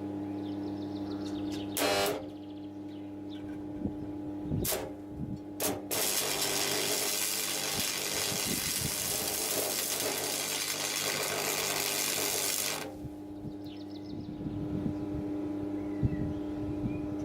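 Arc welder humming, with three brief arc strikes and then a steady crackling weld run lasting about seven seconds, from about six seconds in. These are the tack welds joining the layers of a steel billet.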